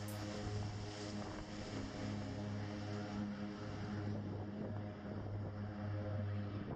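Twin-engine turboprop plane at takeoff power during its takeoff roll: a steady propeller drone with a low hum and a row of even overtones.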